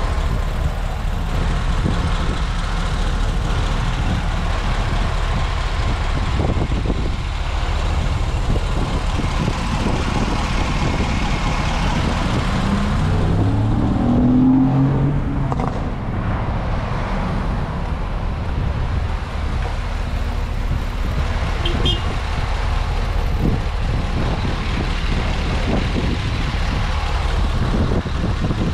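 Isuzu NPR HD's 6.0 L Vortec gasoline V8 idling steadily, heard up close with the cab tilted forward, with a brief rise and fall in pitch about halfway through.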